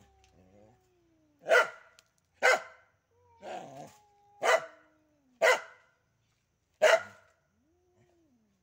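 Dog barking sharply at a cat, five loud barks about a second apart. Between the barks come long, quieter yowls that slide down in pitch, the cat caterwauling back.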